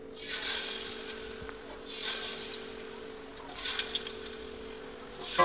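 Peyek batter of rice flour and peanuts poured ladleful by ladleful into hot frying oil along the side of a wok, sizzling up in about three surges as each pour hits the oil. A steady low hum runs underneath.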